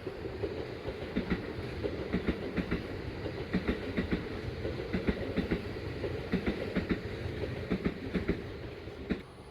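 Kintetsu electric train running past, its wheels clattering over rail joints in a quick, repeated rhythm over a steady rumble; the sound cuts off abruptly about nine seconds in.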